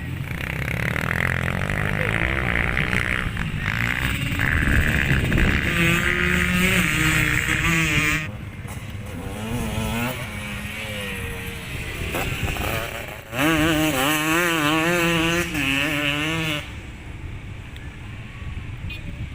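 Motocross motorcycle engines revving up and down with the throttle. There is a long loud stretch, then a second burst late on that cuts off suddenly, leaving quieter engine noise in the background.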